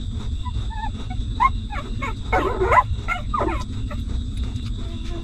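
Newborn puppies whimpering and squeaking while nursing at their mother: a string of short, high squeaks that slide up and down, loudest in a cluster about halfway through, over a steady low rumble.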